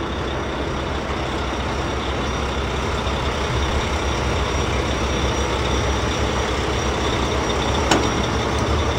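Steady truck engine rumble running without a break, with a single sharp click about eight seconds in.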